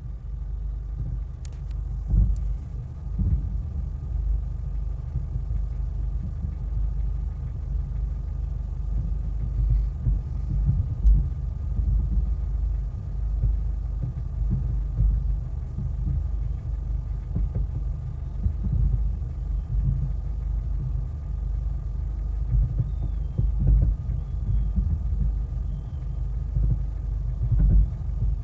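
Many fireworks going off at a distance, their booms running together into a continuous low rumble that keeps surging, with a few sharper cracks near the start and about eleven seconds in.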